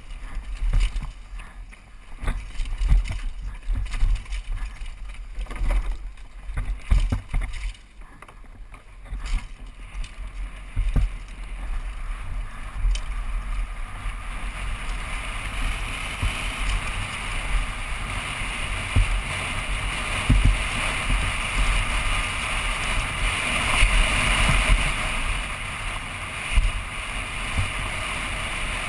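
Downhill mountain bike descending, heard from a helmet camera: the bike rattles and thuds over rough singletrack, then about halfway through a steady rush of wind and tyres on loose gravel builds as the speed rises.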